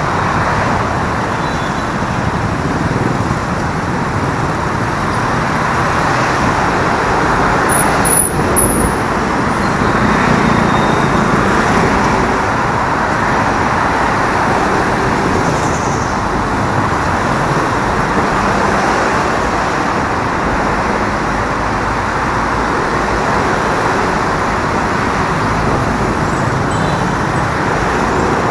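Steady traffic noise heard from a motorcycle riding slowly in dense city traffic: the engines of the surrounding motorcycles and vehicles blend into an even rumble. A brief knock stands out about eight seconds in.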